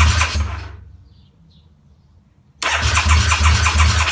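Harley-Davidson V-Rod's V-twin engine cranking on its electric starter with a rhythmic chug, turning over without catching, in two attempts. The first tails off about half a second in; the second starts suddenly about two and a half seconds in and is cut off at the end. This is a no-start: the engine spins but will not fire, despite a new battery.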